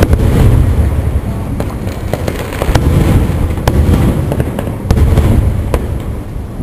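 Aerial firework shells bursting overhead in close succession: a string of sharp bangs over a continuous low rumble of booms and their echoes.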